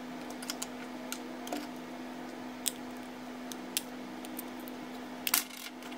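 Light clicks and taps of plastic pager housing and circuit-board parts being handled and pulled apart, scattered and irregular, with a louder clatter a little past five seconds. A steady low hum sits underneath.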